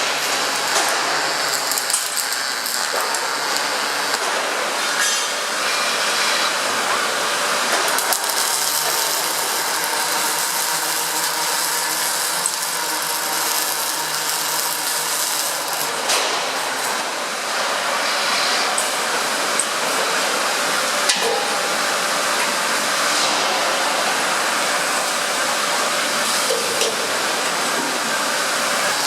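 Industrial robotic welding cell running: a steady crackling hiss with scattered clicks and knocks.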